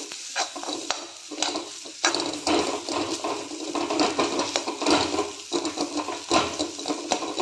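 Metal spatula scraping and knocking irregularly against a kadhai while stir-frying a mashed-potato filling in a little oil, with a light sizzle.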